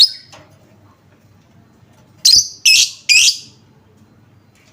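Lovebird giving three short, loud, shrill calls in quick succession about two seconds in, after the tail of another call at the very start. A lure call used to set other lovebirds calling.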